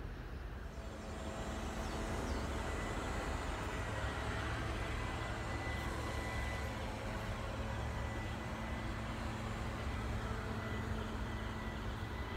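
Steady low rumble of a distant engine, with a faint steady hum running through it.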